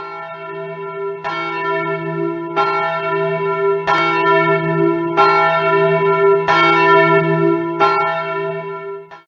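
A single church bell tolling, struck seven times about every one and a quarter seconds. Its low hum rings on between strokes, and the ringing dies away just before the end.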